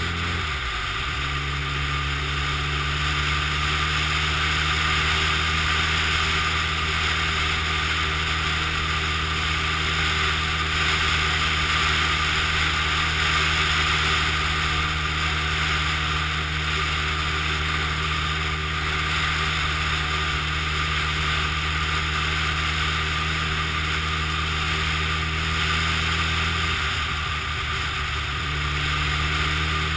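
Honda Blackbird sports motorcycle's inline-four engine running steadily at cruising speed, with wind rushing past the microphone. The engine note dips briefly about a second in and again near the end, then steadies.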